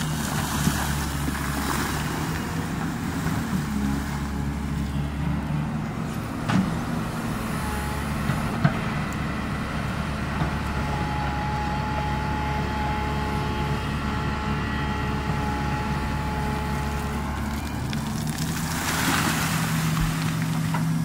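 Yutong YT210.8 crawler excavator's diesel engine running steadily under load as the arm digs and dumps gravel, with a couple of sharp knocks. Near the end comes a rush of churning water as the bucket works in the stream.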